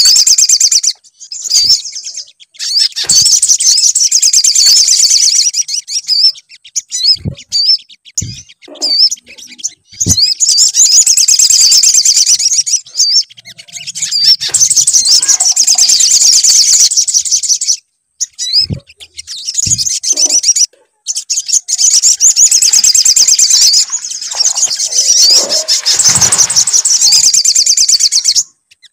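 Loud recorded birdsong of the sogok ontong (little spiderhunter): long runs of rapid high chirps broken by short pauses, played as a lure call to set a caged bird singing.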